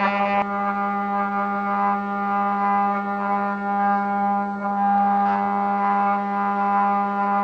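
CNC router spindle carving solid wood, a steady high whine that holds one pitch, with a rougher cutting noise from the bit that rises and falls as it passes through the wood.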